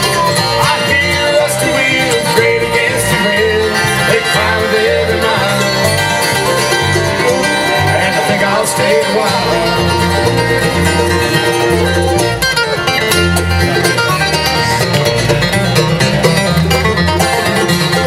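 Live acoustic bluegrass band playing steadily: flat-top acoustic guitars, mandolin, fiddle, dobro and an upright bass walking a line underneath.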